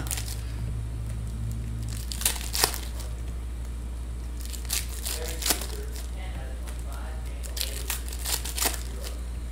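Foil trading-card pack wrappers being torn open and crinkled by hand, in short sharp bursts a few seconds apart, over a steady low hum.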